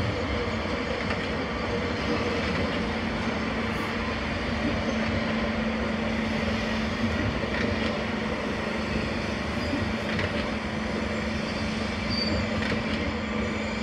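Two coupled Stadler Flirt electric multiple units rolling slowly past, with steady wheel-on-rail noise and a low steady hum.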